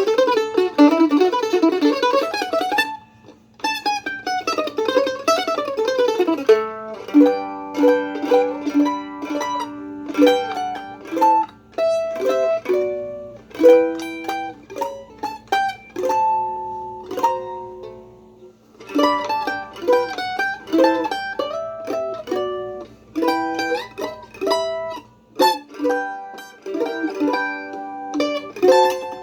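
Craig Wilson WA-5 mandolin played solo: a fast, dense tremolo passage at first, then picked single-note melody lines and ringing chords, broken by a few brief pauses.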